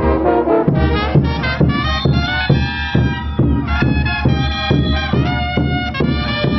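Andean folk wind ensemble playing a reedy melody together, with a drum beating about twice a second under it.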